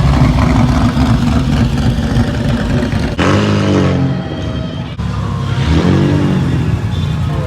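Chevrolet Opala engine running loud, revved twice, about three seconds in and again near six seconds, its pitch rising and falling each time.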